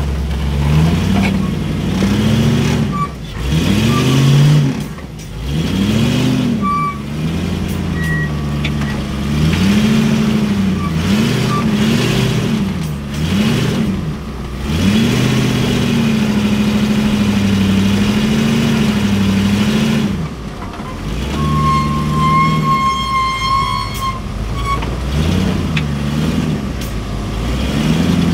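Rock-crawling trial buggy's engine revved in repeated rising and falling blips as it climbs over a boulder, then held at steady revs for several seconds before dropping back and blipping again near the end. A short high whistle-like tone sounds about two thirds of the way in.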